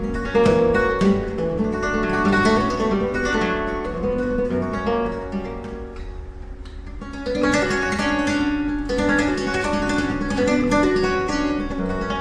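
Solo flamenco guitar playing por soleá: fingerstyle runs and plucked notes, easing off about six seconds in before picking up again.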